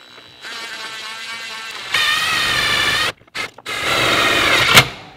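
A DeWalt 20V cordless drill driving a self-tapping screw into sheet metal to mount a relay. The motor whines in spurts: a lighter run, then a louder one under load, a short pause with a couple of brief blips, and a final run that ends in a sharp click as it stops.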